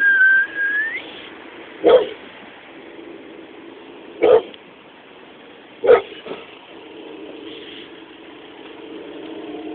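A dog giving single sharp barks, spaced a couple of seconds apart. They follow a high, drawn-out whine that rises in pitch at the start.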